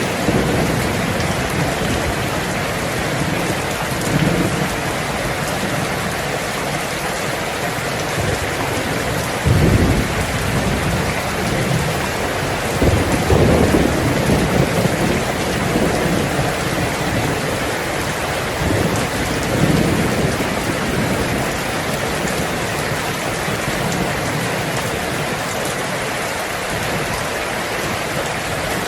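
Heavy rain falling steadily on a tin roof, with low rolls of thunder about ten seconds in, again a few seconds later, and near twenty seconds.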